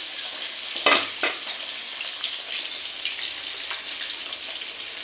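Salted water with ghetkol leaves boiling hard in an uncovered aluminium kadai, a steady crackling, sizzling bubble. Two sharp knocks come about a second in.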